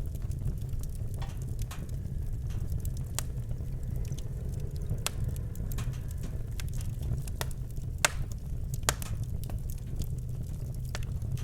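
Wood fire burning in a fireplace: irregular sharp crackles and pops over a steady low rumble, the loudest pop about eight seconds in.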